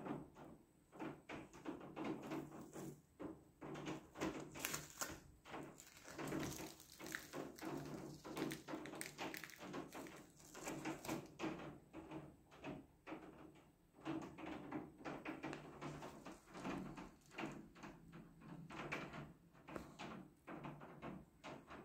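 A dense, irregular run of short knocks and clacks, several a second.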